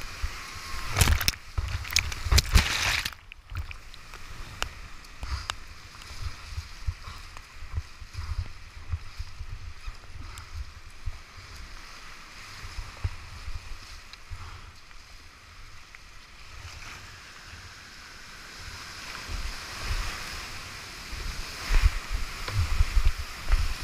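Whitewater rapids rushing around a kayak, picked up by a helmet-mounted GoPro, with loud bouts of splashing as the boat drops through the rapids, one from about a second in to three seconds and another near the end.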